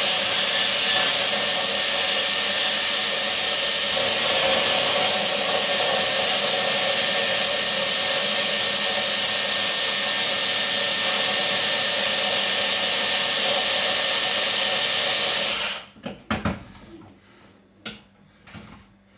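Electric mini chopper running steadily, coarsely chopping garlic cloves with red onion, then switched off about 16 seconds in, followed by a few light clicks and knocks.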